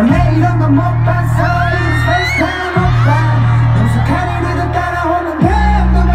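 Live pop/hip-hop song over a loud concert sound system: a male singer's voice over a heavy bass line that changes note twice.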